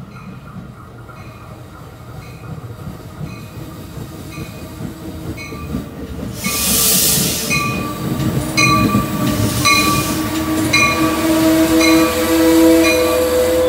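Shore Line East commuter train arriving cab car first and rolling along the platform, its wheels and running gear getting steadily louder as it draws in and passes. A short burst of hiss comes about six and a half seconds in, steady squealing tones come in over the second half, and a bell rings about twice a second throughout.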